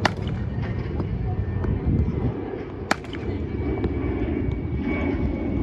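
Cricket bat striking a ball with a sharp crack, twice about three seconds apart, over a steady outdoor rumble.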